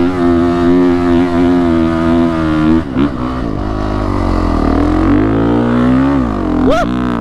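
Honda CRF450RX dirt bike's single-cylinder four-stroke engine pulling at steady high revs under load up a sand dune. About three seconds in the throttle eases off, and the revs then rise and fall, with a quick rev near the end.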